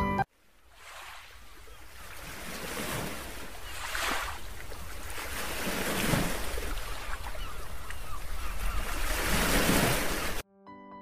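Small waves washing up on a sandy beach, the surf swelling and falling back several times. Soft piano music cuts off at the very start and comes back faintly near the end.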